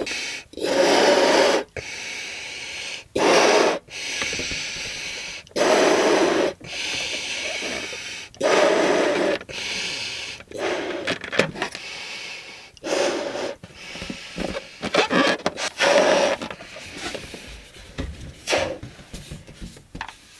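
Someone blowing up a latex balloon by mouth: hard exhales into the balloon, each about a second long, coming every two to three seconds with breaths drawn in between. In the second half the blows get shorter and choppier.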